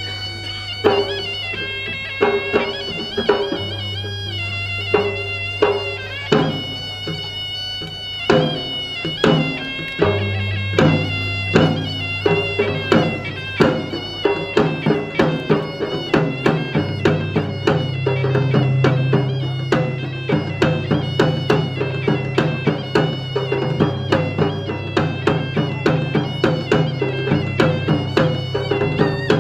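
Traditional Makassar music: a reedy wind instrument plays a sustained, ornamented melody over a low held drone, accompanied by gendang Makassar barrel drums. The drum strokes become faster and more regular about ten seconds in.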